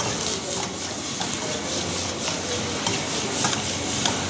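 A long-handled metal ladle stirring and scraping a wok, clinking against the metal at irregular moments, over a steady hiss of a high gas flame and frying food.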